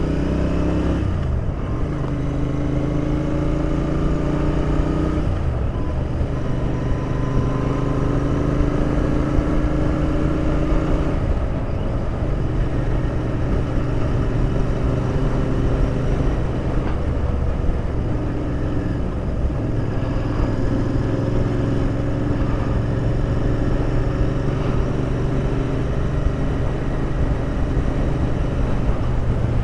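Royal Enfield Interceptor 650's parallel-twin engine running under way, heard from the rider's position. The engine note climbs and drops several times as the bike changes speed and gear, over steady road and wind noise.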